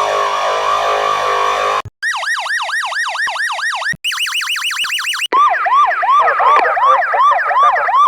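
Police car siren sound effects in several short variations played back to back, each cutting off abruptly: first a wail of repeated falling sweeps, then a fast rising-and-falling yelp, a higher and faster yelp, and finally a louder yelp over a steady tone.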